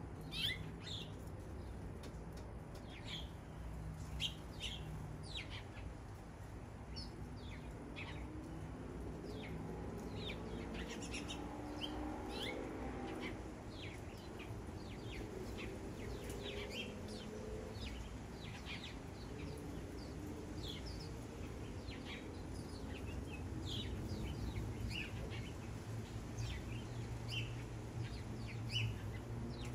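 Many backyard birds chirping together, a dense stream of short, overlapping high chirps over a low steady rumble.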